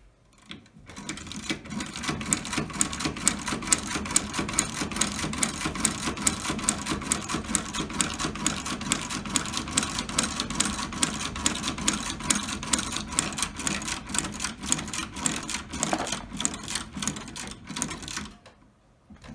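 Old Dürkopp Class 17 sewing machine stitching leather, running with a fast, steady clatter of needle strokes. It starts about a second in and stops shortly before the end.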